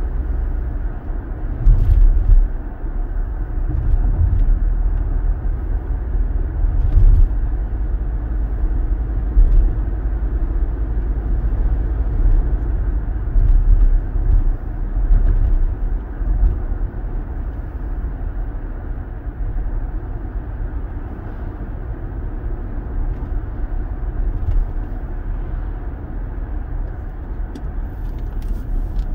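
Inside a moving car's cabin: steady low rumble of the engine and tyres on the road, with a few faint clicks.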